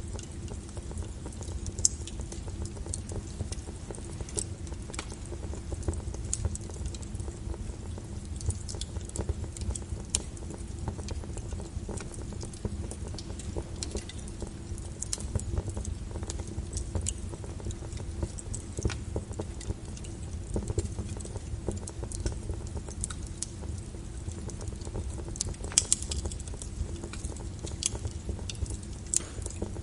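Wood fire in a fireplace crackling, with frequent sharp pops at irregular intervals over a low, steady rumble.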